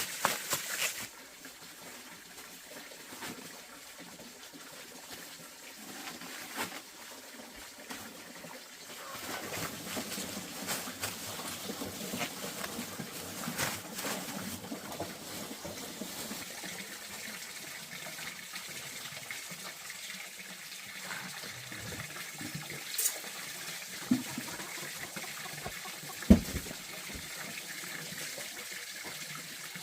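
Water running and trickling steadily, with scattered clicks and a few sharp knocks in the latter part, the loudest near the end.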